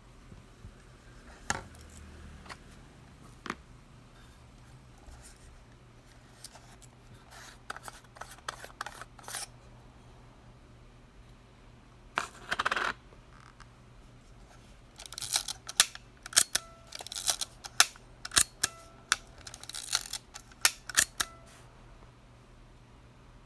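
Mechanical clicks and snaps from a Minolta Hi-Matic 7S rangefinder film camera being handled and worked. Scattered single clicks are followed by a short, rasping, roughly one-second wind about twelve seconds in. A quick series of clicks comes later, some of them ringing briefly.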